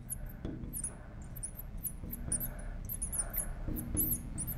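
Felt-tip marker squeaking across a glass lightboard while words are written: a quick run of short, high squeaks, several a second, one for each pen stroke.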